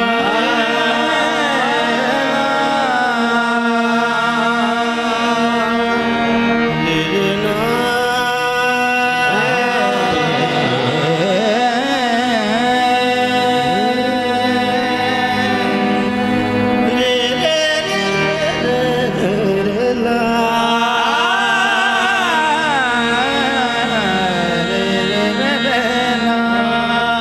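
Qawwali music: a male singer's voice rises and falls in long, wavering melodic runs over steady held harmonium notes.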